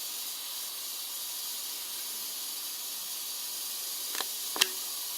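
Rattlesnake rattling its tail: a steady, high, even buzz, with two short clicks a little after four seconds in.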